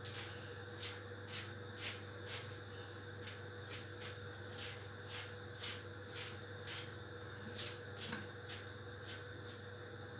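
Knife cutting curly lettuce finely: short, soft cuts at about two a second, over a steady low hum.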